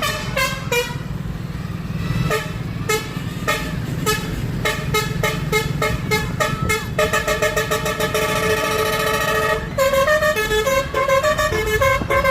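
Warsaw tram's horn sounding a long run of short musical toots at changing pitches, like a tune. Near the middle it holds one note for a couple of seconds, then goes back to quick toots. A steady low rumble runs underneath.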